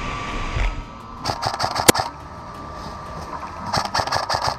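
Upgraded M4 airsoft electric gun (AEG) firing two short full-auto bursts of rapid clicks, about a second in and again near the end, with one sharp crack during the first burst.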